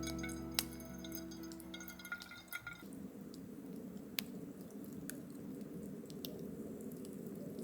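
Background music fading out about three seconds in, leaving a faint steady hiss with a few light clicks and clinks.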